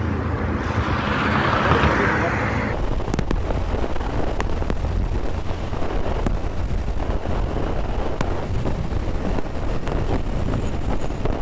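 Wind rushing over the microphone of a moving motorcycle, with engine and road rumble underneath; a brief hiss in the first couple of seconds.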